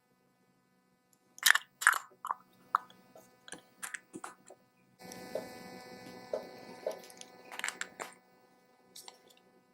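Small carburetor parts clicking and tapping as they are handled and fitted back together, a dozen or so sharp clicks, then a steady hiss lasting about three seconds with a few light taps in it.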